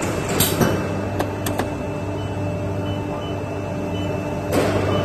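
LPG-5 spray dryer running with its fan and atomizer on: a steady machine hum with a few held tones, a few sharp clicks about a second in, and a louder rush of noise near the end.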